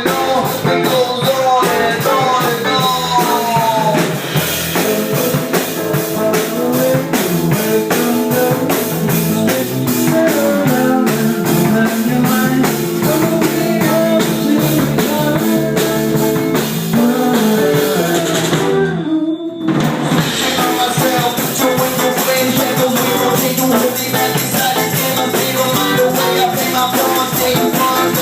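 Live rock band playing at a sound check, drum kit and guitar together in a dense, loud mix. About two-thirds of the way through the music breaks off for a moment, then comes back in.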